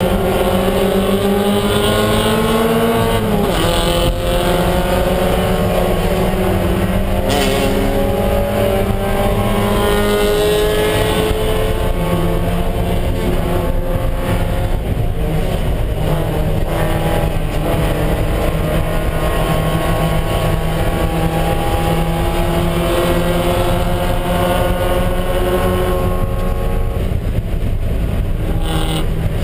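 Spec Miata race car's four-cylinder engine heard from inside the cockpit under hard acceleration. Its pitch climbs through each gear and drops at each upshift, the first about three seconds in, over steady road and wind noise.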